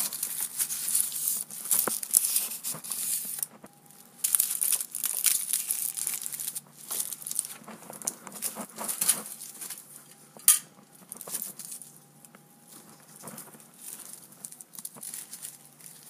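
Paper rustling and crumpling as it is handled, in two long stretches with a short gap between them, then quieter scattered taps and clicks with one sharp click about ten seconds in.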